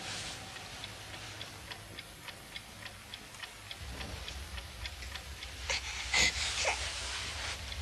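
Clock ticking steadily, about three ticks a second, with a brief louder sound about six seconds in.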